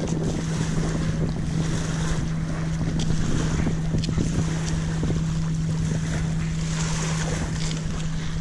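Wind buffeting the microphone, with a steady low hum underneath and a few faint clicks in the middle.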